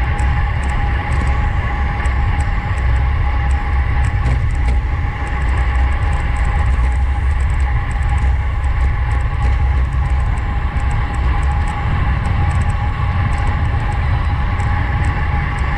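Wind rushing over a bicycle-mounted action camera's microphone at race speed, with a steady rolling hum from the tyres and drivetrain.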